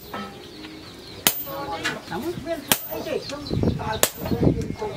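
Sledgehammer blows on a hot-cut chisel held against red-hot tractor-disc steel on an anvil, cutting the steel. There are three sharp metal strikes, evenly spaced about a second and a half apart.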